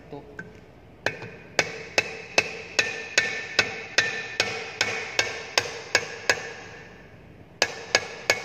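Rapid, evenly spaced metal-on-metal knocks, about two or three a second, each with a short ringing tone. A pump shaft and its ball bearing are being driven down into a centrifugal pump's cast-iron bearing housing. The knocking stops for about a second and then starts again near the end.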